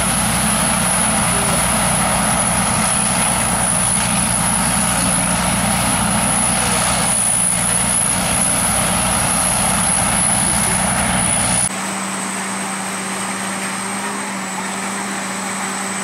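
Sakpattana KM AMT corn combine harvester running steadily while cutting corn, a loud constant machine noise with a high steady whine over it. An abrupt cut about three-quarters of the way through drops it to a quieter, steady engine hum.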